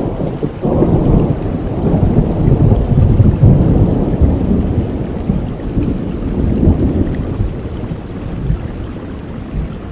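Rolling thunder over steady rain. The low rumble swells up about half a second in, peaks midway, and dies away near the end.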